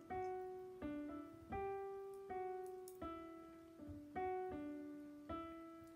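Background piano music: slow, evenly paced notes, struck about every three-quarters of a second and each left to fade before the next.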